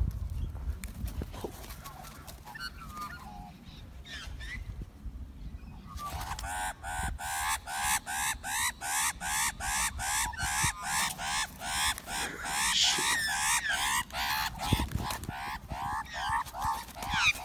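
Australian magpies squawking during a fight: after a few scattered calls, a rapid, steady run of harsh, falling cries, two to three a second, starts about six seconds in and keeps going.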